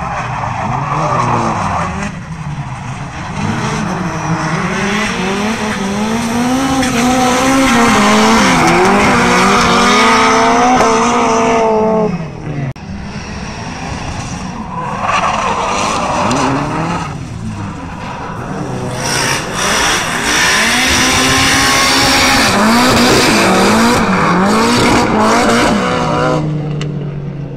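Two drift cars in a tandem run, engines revving hard, pitch rising and falling with the throttle over screeching tyres. The sound cuts off suddenly about twelve seconds in, and another run with the same revving and tyre noise follows.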